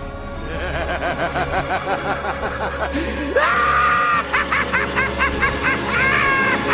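Maniacal laughter sound effect: a voice cackling 'ha ha ha' in quick repeated bursts, climbing about three seconds in to a high, held laugh, then more rapid cackles, over music.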